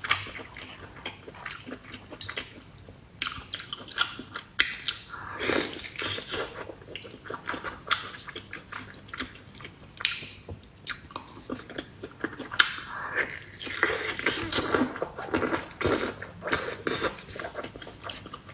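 Chewing raw salmon sashimi: soft, wet mouth sounds with many short, sharp clicks at an uneven pace.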